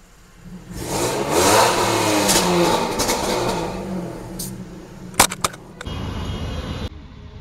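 Range Rover Sport SVR's supercharged V8 revved hard, the exhaust surging and falling away over about three seconds. A few sharp cracks follow about five seconds in.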